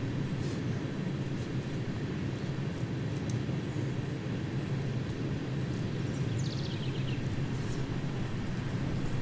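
Steady low rumble of a passing freight train, running on without change.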